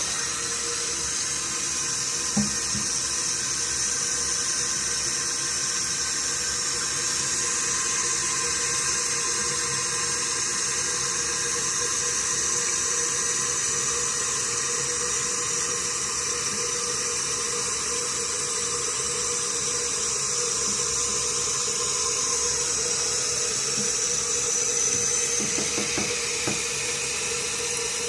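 Toilet cistern running after a flush, water hissing steadily through the fill valve without shutting off, with a steady hum underneath. The toilet is running non-stop.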